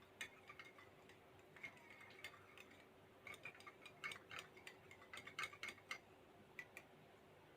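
Faint, irregular clinking of a stirrer against a glass beaker while ammonium chloride is stirred into a little distilled water to dissolve it. The clinks come in quick runs, busiest between about three and six seconds in.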